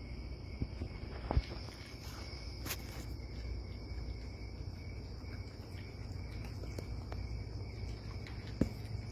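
A steady insect chorus trilling without a break, with a low rumble beneath and a few brief knocks.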